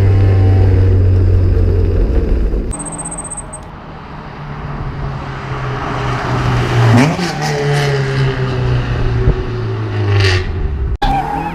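Ford Escort Mk2's Pinto four-cylinder engine running through a Cherry Bomb Extreme exhaust muffler. It holds a loud steady drone, drops off about two and a half seconds in, then builds again with a rise in revs around seven seconds before cutting off abruptly near the end.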